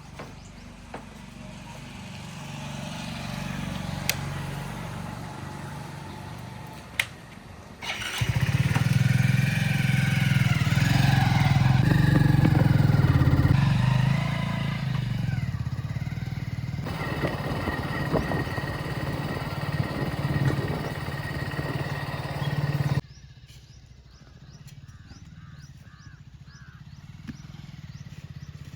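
Diesel engine of a backhoe loader running and revving as it works, heard across several abruptly cut shots, loudest through the middle stretch. Two sharp clicks come in the first seven seconds.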